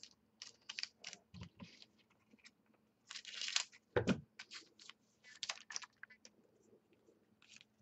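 Foil trading card packs and cards being handled on a tabletop: scattered light clicks and rustles, a longer crinkle of foil wrapper about three seconds in, and a soft knock on the table just after.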